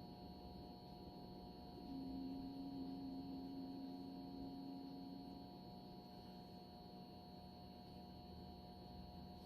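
Dialysis machine running its self-test: a steady mechanical hum with several constant tones, and a louder low steady tone that comes in about two seconds in and stops about three and a half seconds later.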